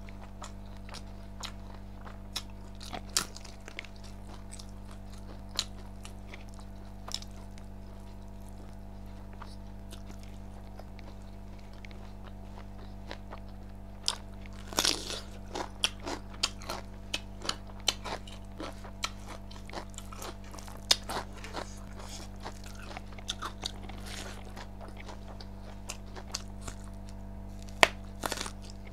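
Close-up eating sounds: a person biting and chewing crunchy food, raw vegetables among it, in scattered sharp crunches that come thicker from about halfway through, with one sharp crunch near the end. A steady low hum runs underneath.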